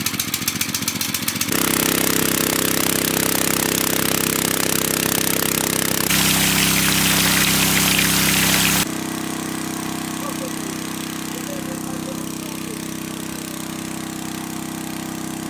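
Small gasoline engine of a portable water pump, firing slowly at first and then running steadily from about a second and a half in. For a few seconds in the middle, water gushing out of the pump's discharge hose adds a loud rushing splash, which stops suddenly.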